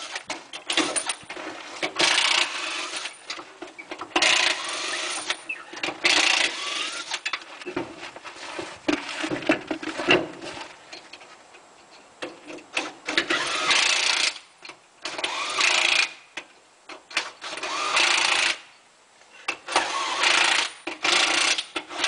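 Impact wrench running in repeated short bursts, spinning lug nuts off and back on during a quick tire change, with clatter of tools and wheel parts between the bursts.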